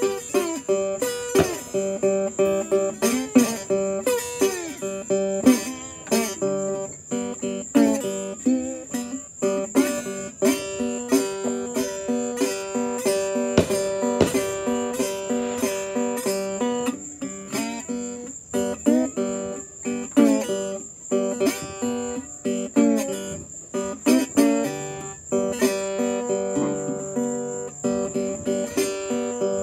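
Guitar playing a lively instrumental boogie tune with quick picked notes.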